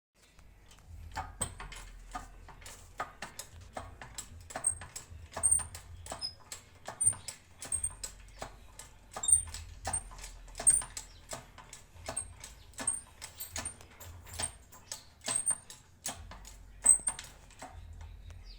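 Irregular sharp taps and clicks of metal parts and tools, roughly one or two a second, over a faint low hum.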